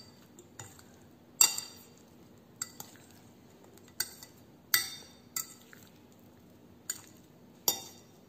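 Metal fork tossing salad in a white ceramic bowl, clinking sharply against the bowl about nine times at irregular intervals, with soft stirring of the chopped vegetables between the clinks.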